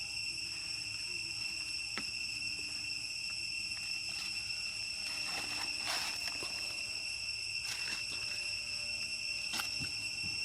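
Steady high-pitched drone of jungle insects, an unbroken two-tone hum, with a few brief clicks and rustles scattered through it.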